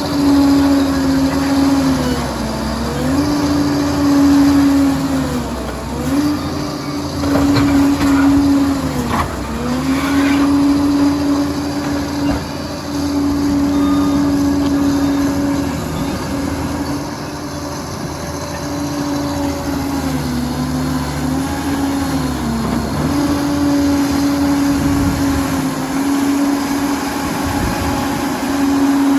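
Liebherr PR 746 crawler dozer's diesel engine running steadily under load, its pitch sagging briefly several times as it lugs and recovering each time. A few sharp knocks sound partway through.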